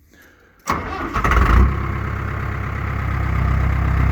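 Tractor engine started: the starter cranks for about a second before the engine catches, then it settles into a steady idle.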